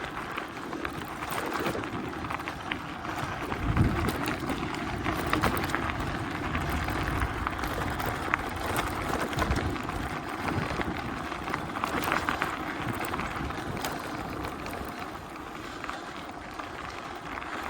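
Gravel bike tyres rolling over a gravel road, a steady crunching hiss with many small stones ticking and pinging off the tyres, and gusts of wind on the microphone, one dull buffet about four seconds in.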